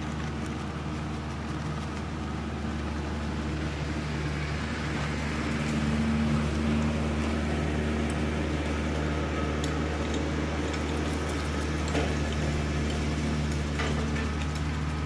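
Tractor engine running steadily while mowing, a little louder from about five seconds in, with a few light knocks of a hand chopper working the dirt near the end.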